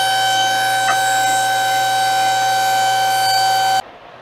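Two-post car lift's electric hydraulic pump motor running with a steady whine while it raises the car, with a single click from the lift's safety latch about a second in. The whine cuts off abruptly shortly before the end.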